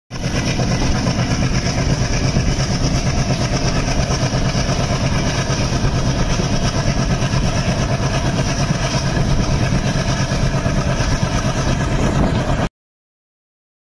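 Diesel locomotive engine running under power on a moving train, a steady rapid pulsing from close by on the locomotive itself. It cuts off abruptly near the end.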